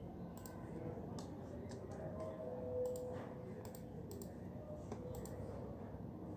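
Computer keyboard typing: irregular key clicks, a few in quick succession then short pauses, over a steady low room background. A brief steady tone sounds near the middle.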